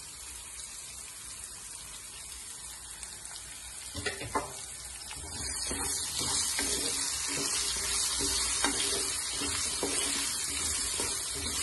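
Pieces of Indian gooseberry (amla) sizzling in hot oil in a nonstick pan. From about four seconds in, a wooden spatula stirs them, scraping and knocking against the pan, and the sizzle grows louder.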